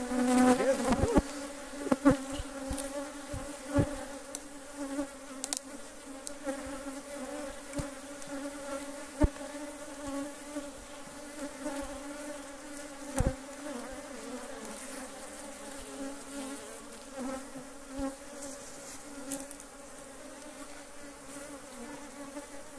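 Honeybees from an open hive buzzing in a steady, pitched drone around the beekeeper: a defensive colony that is stinging. A few sharp knocks stand out over the buzz, the loudest a little past halfway.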